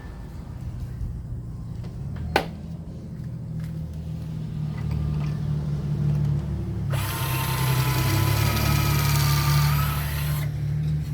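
Power drill with a Kreg stepped pocket-hole bit boring a pocket hole in a board. The motor runs with a steady low hum. About seven seconds in, the bit cuts into the wood for about three and a half seconds, adding a hissing, whining cutting sound. There is a single click about two seconds in.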